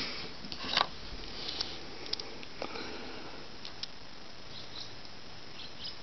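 Faint handling noise from a small combination padlock being picked up and turned in the fingers: a few small clicks and rustles, the strongest about a second in, over a steady low hiss.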